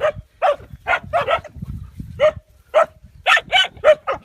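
Dog barking in a rapid series of short barks, about two or three a second, with a brief pause a little before the middle.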